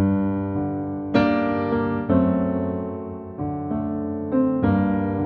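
Instrumental intro on a piano-type keyboard: sustained chords, each struck and left to ring and fade, a new chord about every second or so.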